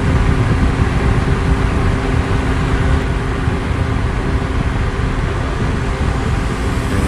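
Small battery-powered DC motor and fan of a homemade bottle vacuum cleaner running steadily, a whirring rush with a faint steady hum.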